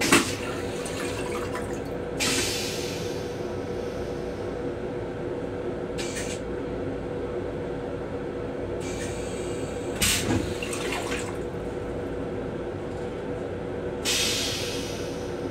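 Steady hum of an M7 electric railcar heard from inside its small restroom. A sharp knock comes right at the start, and short hissing spurts come about two, ten and fourteen seconds in, the middle one with a low thud.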